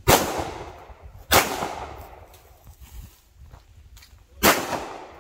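Three 9mm Canik pistol shots, the first two about a second apart and the third about three seconds later, each trailing off in a short echo.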